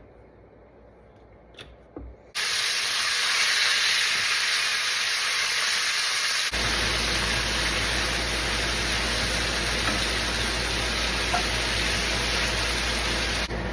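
Cubes of beef chuck searing in hot olive oil in a pan: a loud, steady sizzle that starts suddenly about two seconds in, after a few light clicks. A low hum joins partway through.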